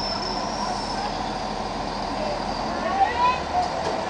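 NordWestBahn diesel multiple unit standing at the platform with its engines running: a steady rumble and noise, and a high steady whine that slowly fades over the first two seconds. A brief sharp high sound about three seconds in.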